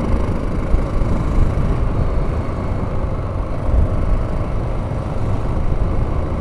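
Honda XL600R's 589cc single-cylinder engine running steadily as the bike rides along, mixed with wind rumble on the helmet-mounted microphone.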